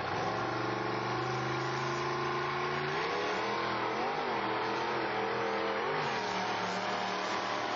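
Mud-racing buggy's engine running hard, its pitch climbing slowly for the first few seconds, then revving up and down repeatedly as it works in the mud pit.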